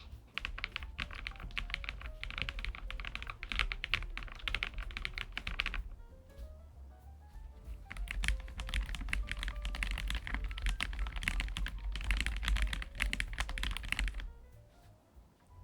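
Fast typing on a Lofree Flow Lite low-profile mechanical keyboard with full-POM switches: a run of about five seconds of rapid keystrokes, a pause of about two seconds, then another run of about six seconds. Background music plays underneath.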